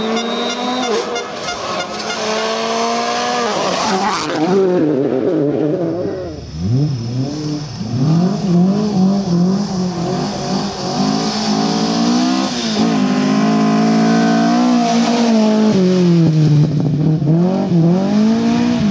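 Rally cars driven flat out on a stage, one after another: engines revving up and dropping back again and again through gear changes and lifts.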